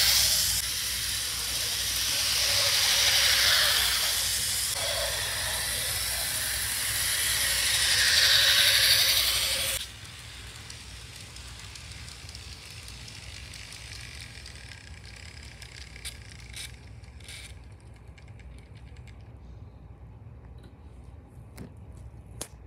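N-gauge model train running on its track close by: a loud, hissing whir with slowly sweeping tone that cuts off abruptly about ten seconds in. After that the train's running sound is much fainter and steady, with a few sharp clicks near the end.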